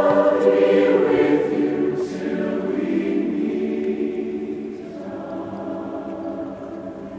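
Large choir with orchestra singing sustained chords that slowly fade away, dying down markedly by the end.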